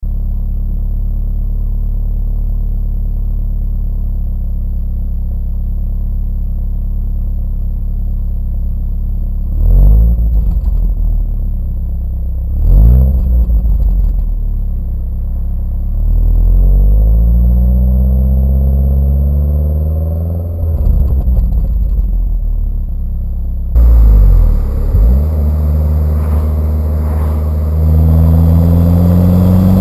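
Stock Nissan CA18DET 1.8-litre turbocharged four-cylinder idling steadily, then blipped sharply twice, revved in one longer climb that holds and falls back, blipped again, and rising once more near the end. The revs are kept below about 4000 rpm.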